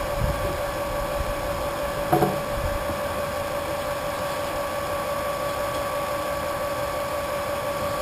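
Small electric wort pump running steadily with a constant whine, circulating hot wort through a plate chiller with its flow throttled down. A brief, louder sound breaks in about two seconds in.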